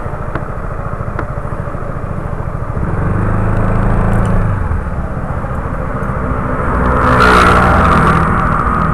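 Small scooter engine running, rising in pitch and level as it pulls away about three seconds in. A louder rushing noise comes in about seven seconds in.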